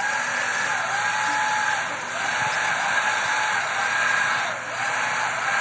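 Corded electric power tool running continuously against a corrugated steel roof panel, a loud hiss over a motor whine whose pitch sags a few times as the tool takes load.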